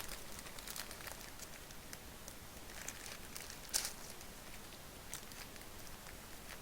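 Faint crinkling and rustling of plastic as a trading card is slipped into a card sleeve, in scattered short crackles with a sharper one a little under four seconds in.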